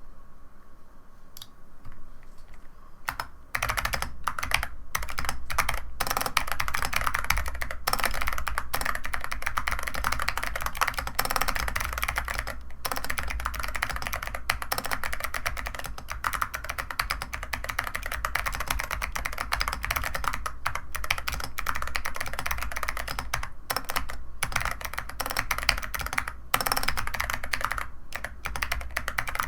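Fast, continuous typing on a CIDOO ABM066 mechanical keyboard with 45 g Zeal Clickiez switches and SA-profile keycaps. A few separate keystrokes come first, and steady rapid typing starts about three and a half seconds in.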